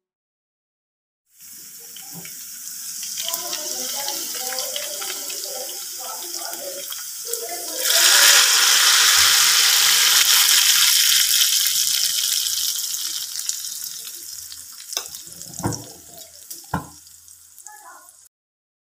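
Hot tarka (spiced oil tempering) sizzling as it is poured over daal. The sizzle jumps much louder partway through, then slowly dies away, with a few knocks near the end.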